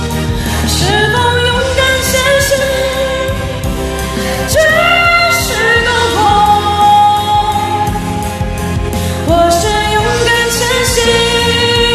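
A woman singing a Chinese pop ballad over a karaoke backing track, with sliding held notes, through a condenser microphone and USB sound card.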